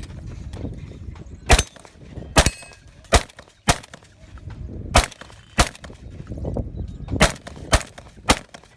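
Shotgun fired again and again in a timed stage, about nine shots at uneven spacing, several in quick pairs.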